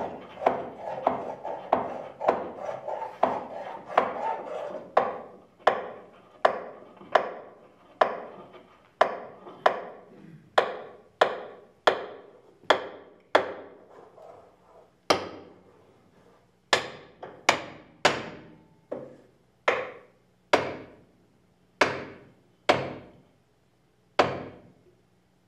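A steady series of sharp knocks, about one every three-quarters of a second, each with a short ringing tail, played as part of an improvised music performance. Under the first few seconds a denser ringing texture fades away. The knocks pause briefly about halfway, then return louder and more widely spaced before stopping near the end.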